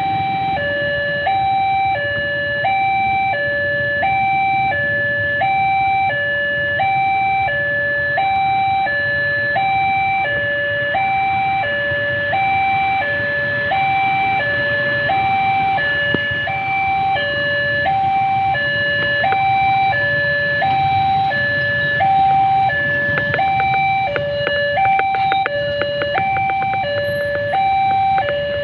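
Railway level-crossing warning siren sounding a steady two-tone hi-lo alarm, the tones swapping about every three-quarters of a second, warning that a train is approaching and the crossing is closed. A low rumble runs underneath.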